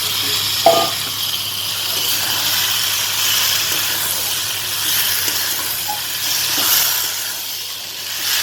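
Pointed gourd, potatoes and prawns sizzling in a spiced masala in a kadai, with a steady hiss. A metal utensil clinks against the pan about a second in and again near the end.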